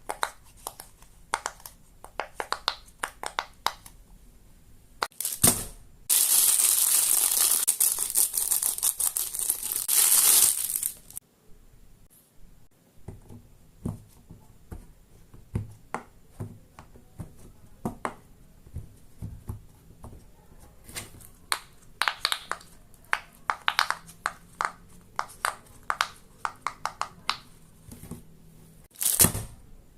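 Fidget toys being played with: many short, sharp pops and clicks in quick runs, with a loud crinkling, crackling noise lasting about five seconds from about six seconds in and a brief one again near the end.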